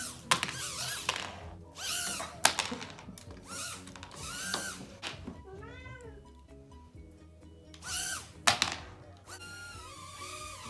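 Background music, with short bursts of a toy mini drone's propellers whirring up and down in pitch and a few sharp thuds as it bumps about.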